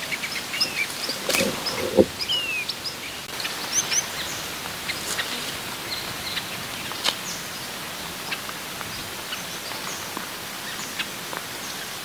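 Long-tailed finches calling: short chirps and downslurred whistles, busiest in the first five seconds and thinning out after, over a steady hiss. A couple of sharp knocks about one and two seconds in.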